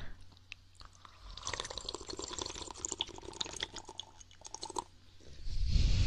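Wet mouth and tongue sounds right against the microphone, as in ASMR ear licking: a run of many small wet clicks and smacks, followed near the end by a louder rushing sound.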